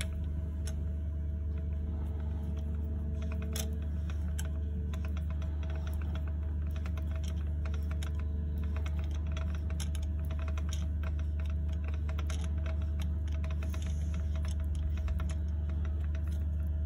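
Allen key clicking and scraping in the socket-head bolts of a propeller hub as the blade bolts are turned tight: many small irregular clicks, more frequent in the second half. Under them runs a steady low hum.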